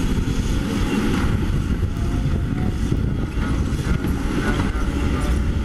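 Caterpillar 320D hydraulic excavator's diesel engine running steadily under load as the boom and bucket are worked, a constant low rumble.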